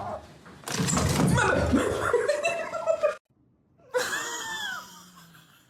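A person laughing loudly for about two and a half seconds. About four seconds in comes a shorter, quieter call whose pitch rises and falls.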